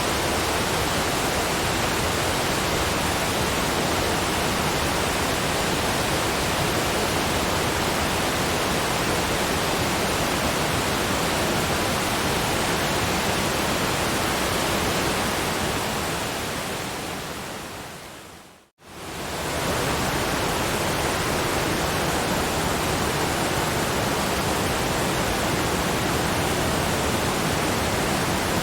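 Steady rushing of a waterfall, a dense even hiss of falling water. About 16 seconds in it fades out to a moment of silence, then fades back in, as at a loop point in the recording.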